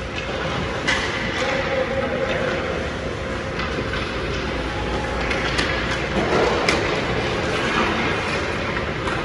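Ice hockey practice on an indoor rink: a steady scraping hiss of skates on the ice, with scattered sharp clacks of sticks striking pucks.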